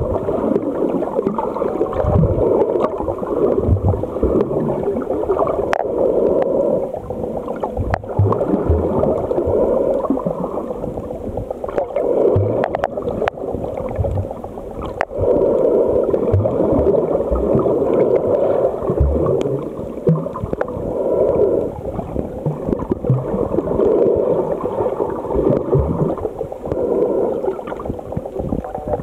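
Muffled underwater water noise picked up by a submerged camera: a dense gurgling rush that swells and eases every few seconds, with scattered low thumps and clicks.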